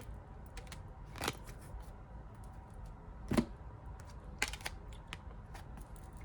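Tarot cards being handled: a few scattered taps and flicks of the cards against each other and the table, the sharpest about three and a half seconds in.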